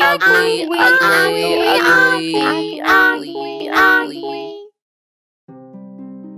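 High-pitched cartoon duckling voices over a held music note for about four and a half seconds, cutting off abruptly. After a short gap, soft plucked-string music begins near the end.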